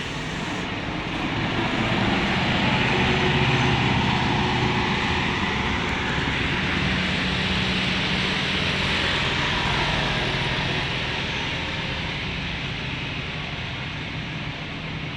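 Large bus engine running with a steady rumble and hiss, growing louder over the first few seconds and easing off near the end.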